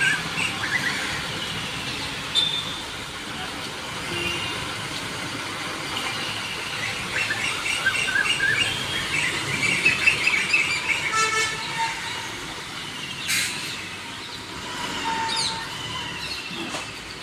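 Sleeper coach engine running as the bus manoeuvres slowly, under many short bird chirps. A brief horn toot comes about eleven seconds in, and a short sharp burst of noise about two seconds later.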